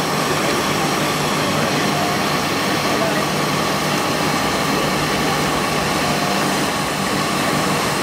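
A machine running steadily: a loud, even drone with a constant hum, unchanging throughout.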